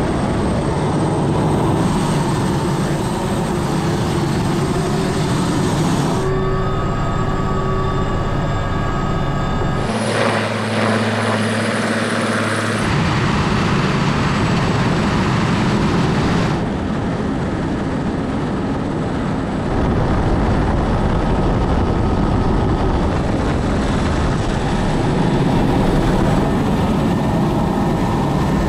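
Military helicopter's rotor and turbine engine running steadily, heard from the open cabin door. The sound changes abruptly several times between shots, and some stretches carry a steady engine whine.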